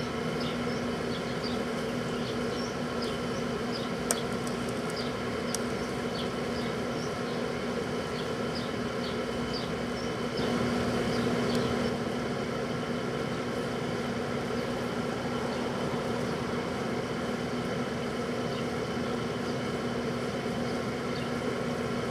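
Microwave oven running with a steady hum, with faint high chirping ticks over it through the first half and a slightly louder stretch about ten seconds in.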